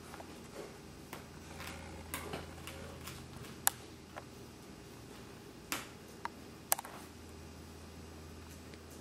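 Light scattered clicks and taps of a small screwdriver and screws on the plastic and metal of a netbook's screen frame during reassembly, with a few sharper clicks in the middle stretch.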